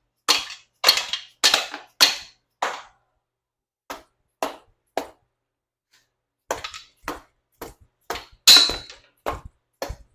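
Shot-filled mallet striking again and again, knocking the lifters of a 1976 Ford 460 V8 down through their bores in the block: sharp blows about two a second, with a short pause about midway.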